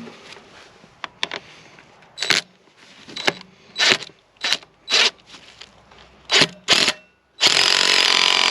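A series of about seven short metal clanks from a slide hammer working at a seized injector, then a loud steady hiss lasting about a second and a half near the end.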